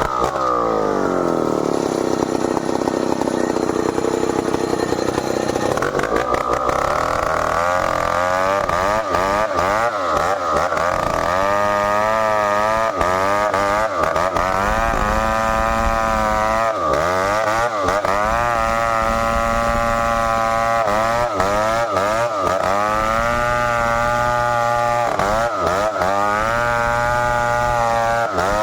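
Stihl 070 two-stroke chainsaw slowing to a low speed, then opened to full throttle about six seconds in. From there its pitch dips and recovers again and again as the chain loads up cutting merbau hardwood.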